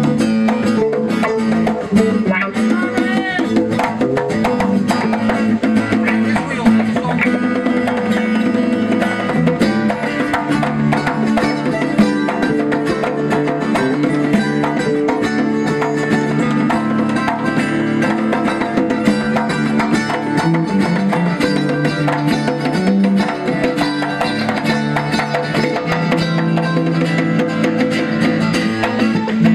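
Live band playing an instrumental passage: strummed acoustic guitar, electric bass guitar, hand-played congas and a mandolin, in a steady, continuous groove.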